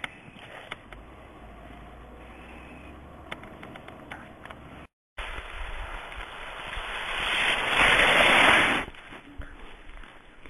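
A toddler in a snowsuit sliding down a snowbank: a scraping hiss of snow that swells and then stops suddenly as the slide ends. Before it, faint clicks and a low hum, broken by a brief dropout.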